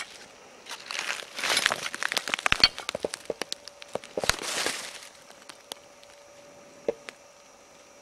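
Footsteps crunching through dry fallen leaves, twigs and scattered plastic and glass litter: a dense run of cracks and crackles for a few seconds that then stops, leaving a couple of isolated snaps.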